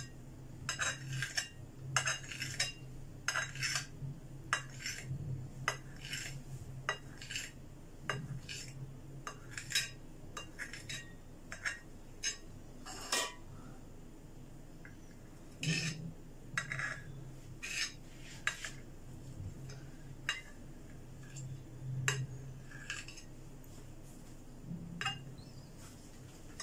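Knife cutting set jelly into small cubes on a ceramic plate, the blade tapping and scraping the plate in irregular sharp clicks, about one or two a second.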